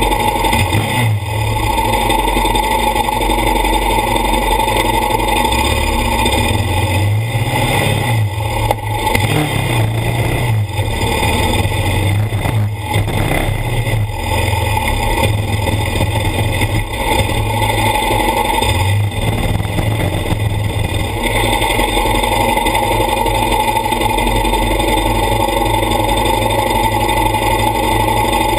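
Sport quad ATV engines running and revving as the quads ride through loose sand. The engine note rises and falls several times.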